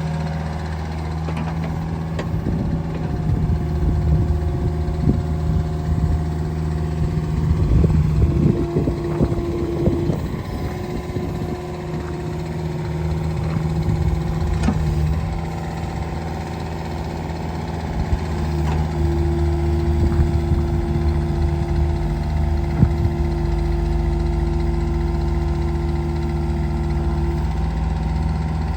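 Caterpillar 305E CR mini excavator's 40-horsepower diesel engine running steadily while the machine is operated. Higher hums come and go over the engine note as the controls are worked, with a few clanks along the way.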